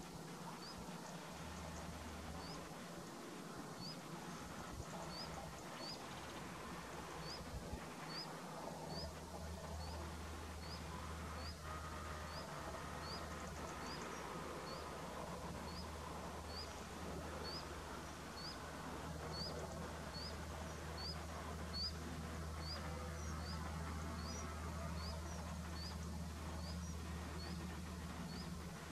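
A bird repeating a short, high, rising chirp about once a second, over a steady low hum.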